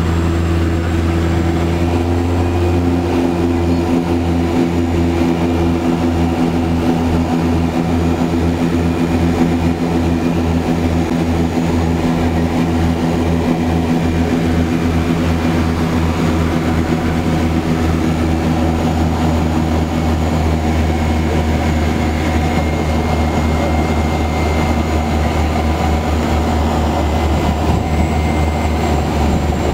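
Seaplane's propeller and engines droning steadily, heard inside the cabin, a deep hum with a fast even pulsing beat. The pitch shifts slightly about a second in, and it holds steady through the descent toward the water.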